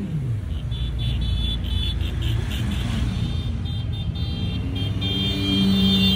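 A procession of motorcycles riding past, their engines making a steady low rumble, with one bike's pitch falling away just at the start as it passes. Short high-pitched tones sound repeatedly over the engines and are held longest near the end.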